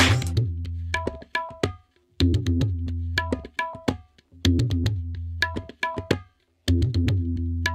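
Percussion music: clusters of sharp, pitched hand-drum strokes over deep bass drum notes, repeating in phrases about two seconds long with brief pauses between them.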